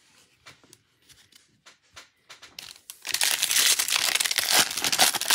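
Foil wrapper of a Bowman Draft trading card pack loudly crinkling and tearing as it is ripped open by hand, starting about three seconds in, after a few faint taps of cards being handled.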